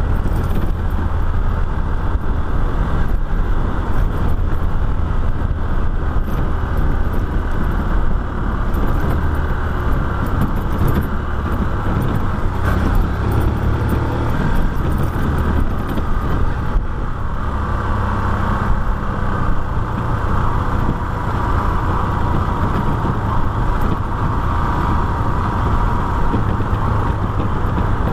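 Motorcycle running steadily at road speed, its engine blended with a continuous low rumble of wind and road noise.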